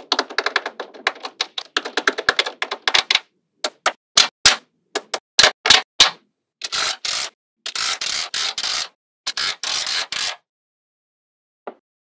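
Small magnetic balls clicking and snapping together as sheets of them are pressed onto each other: a dense clatter for about three seconds, then separate sharp snaps, then a string of short rattling bursts.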